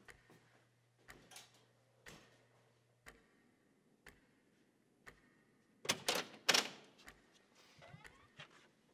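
A clock ticking about once a second, over a low hum that stops about three seconds in. About six seconds in, loud clattering knocks, typical of a metal exit door's push bar and door being worked.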